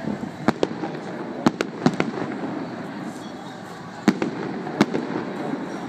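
Aerial fireworks bursting in an irregular series of sharp bangs, several coming in quick pairs, with a lull in the middle.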